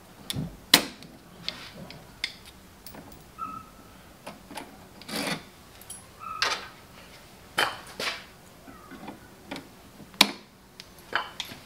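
Side-cutting pliers cutting and handling solid copper building wire: a scattered series of sharp clicks and snips with short rustles in between, the sharpest click about a second in.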